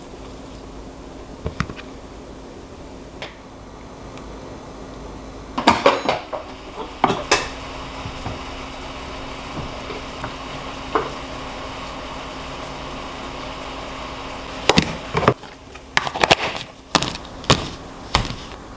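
Kitchenware being handled and set down, sharp clacks and knocks in two clusters, about six seconds in and again near the end, over a steady low hum.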